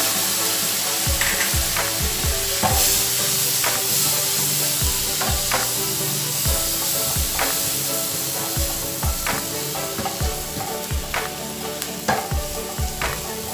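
Onion and spice masala sizzling in a nonstick frying pan while a wooden spatula stirs it, the strokes knocking and scraping on the pan about once or twice a second over a steady sizzle.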